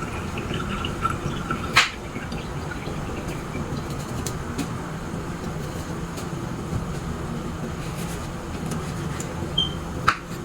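Steady low mechanical hum, with a sharp click about two seconds in and another near the end, just after a brief high tone.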